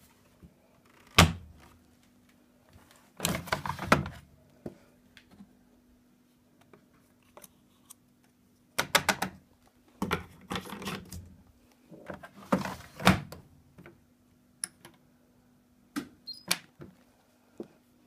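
Thunks, knocks and clatter from handling a front-loading washing machine and detergent bottles while it is loaded and set up, in irregular bursts with a sharp thunk about a second in as the loudest, and a few single clicks near the end. A faint steady hum runs underneath.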